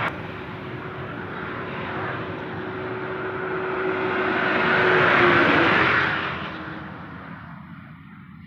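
Engine noise with a steady hum, swelling to its loudest about five seconds in, then fading away over the next two seconds.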